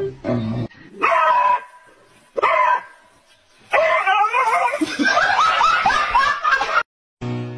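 A small dog barking and yelping in short bursts, later over the noise of a big wave breaking on a sandy beach.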